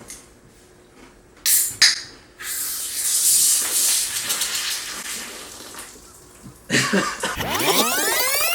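A soda being opened with two sharp clicks, then a loud fizzing hiss of carbonation that fades over a few seconds. Near the end a second, louder surge of fizzing hiss with a sweeping, whooshing sound, as the soda foams up.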